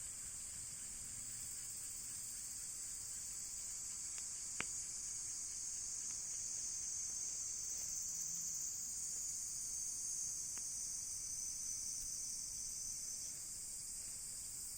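Insects chirring steadily in a high band throughout. A burning wood fire gives one sharp pop about four and a half seconds in, and a fainter crack near the ten-second mark.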